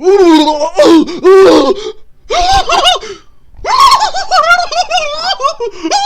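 A man's loud, high-pitched wavering moans and squeals in four bursts, the later ones pitched higher: mock orgasm noises made as an impersonation.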